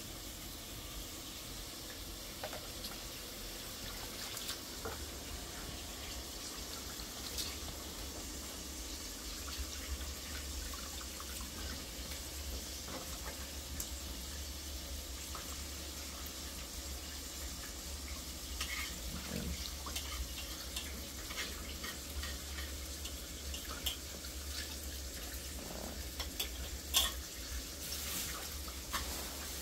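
Water poured steadily from a plastic jug over pieces of boiled chicken in a plastic colander, trickling and splashing into the basin below. A few light clicks come near the end.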